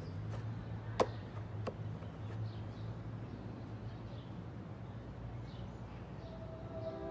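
Quiet outdoor ambience: a low steady hum with faint bird chirps. A sharp click comes about a second in, then a fainter one. Near the end, sustained chime-like mallet-percussion music begins.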